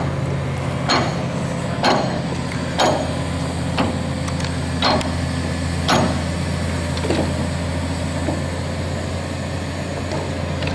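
Tracked scrapyard excavator's engine running steadily as it swings its orange-peel grapple, with a sharp regular click about once a second that fades after about six seconds.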